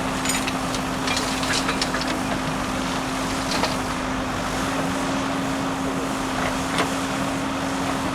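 Diesel engine of a JCB backhoe loader running steadily, with scattered metallic clanks and knocks from the working machine; the loudest knocks come about three and a half seconds in and again near seven seconds.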